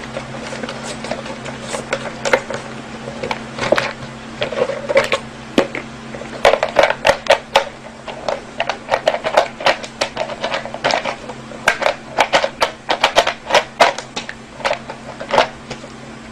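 An irregular series of sharp clicks and taps, sparse at first and coming thick and fast from about six seconds in, over a steady low hum.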